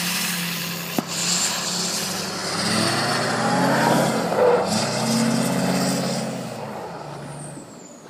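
A vehicle engine revving up twice over a steady hiss, then fading away near the end, with a sharp click about a second in.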